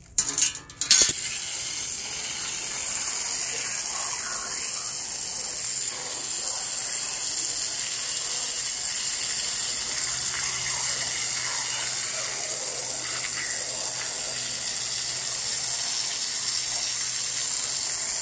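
Water spraying from a hose onto concrete and steel sign cut-outs, rinsing the vinegar off the de-scaled metal: a few sputters as the spray starts, then a steady hiss of spray.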